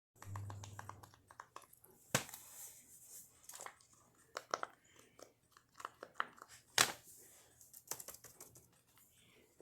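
Irregular small clicks and pops from a fidget toy being handled, with two sharper snaps about two seconds in and again near seven seconds.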